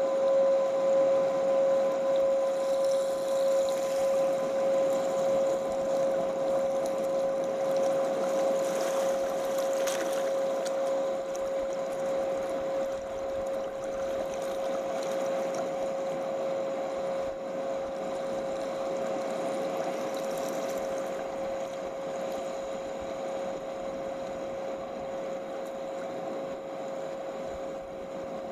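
Fast-flowing river rushing over rocks, under a steady ringing tone, the whole slowly fading.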